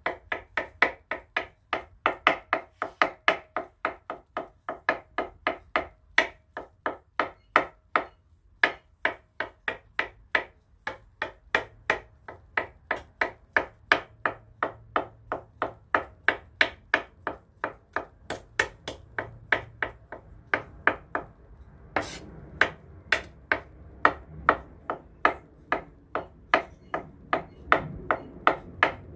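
Kitchen knife chopping hard-boiled eggs on a wooden cutting board: a steady run of knife strikes on the wood, about three a second, with a short pause about eight seconds in.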